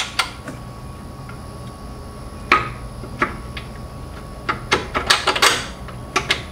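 Irregular metal clinks and knocks from the alternator's mounting bolts and hand tools against the bracket in the engine bay, with a quick run of them about five seconds in, over a steady low hum.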